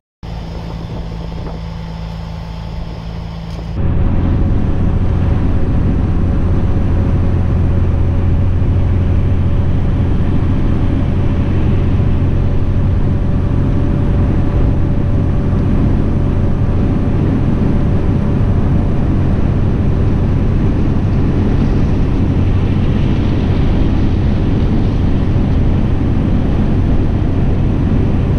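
Dodge Ram pickup heard from inside the cab. After a brief dropout the engine idles with a steady low hum for a few seconds. About four seconds in, the sound changes to the louder, even drone of engine and tyre noise at highway speed.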